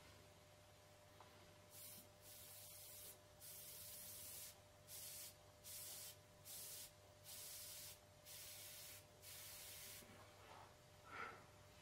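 Airbrush spraying paint in short on-off bursts as the trigger is pressed and released, about ten hissing bursts of under a second each. A brief sharper sound comes near the end.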